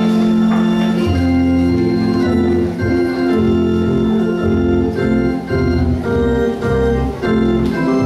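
Organ playing held chords over a moving bass line, with a few sharp taps over it.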